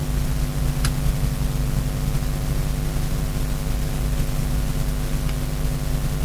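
Steady mechanical hum with a few faint light clicks.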